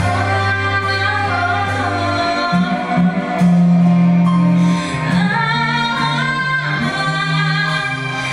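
Music: a slow song passage with a singing voice over held notes and a bass line that steps to a new note every second or two.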